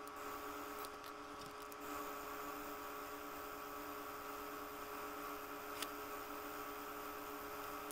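3D printing pen's small filament-feed motor running steadily while it extrudes filament: an even, whirring hum made of several steady tones, with a few faint ticks.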